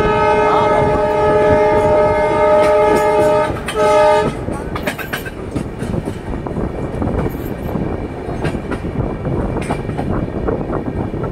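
Train horn sounding a long blast of several steady tones together, then a short second blast that ends about four seconds in. After it, the rumbling of the coaches running along the track with the clicks of the wheels over the rail joints.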